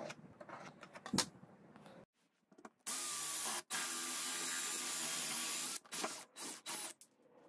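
Handheld drill spinning a hole saw into a plywood square, a steady cutting noise for about three seconds, then a few short bursts near the end. Before it, light clicks and scrapes of a pencil and steel ruler on the wood.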